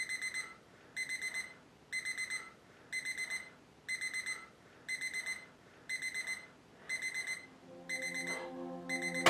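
Citizen travel alarm clock's electronic alarm beeping: bursts of four quick, high beeps, about one burst a second.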